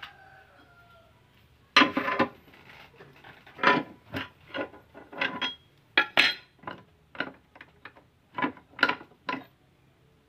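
Steel tools and tie rod end parts clinking and knocking against a steel bench vise as they are handled, about a dozen sharp, irregular metallic knocks.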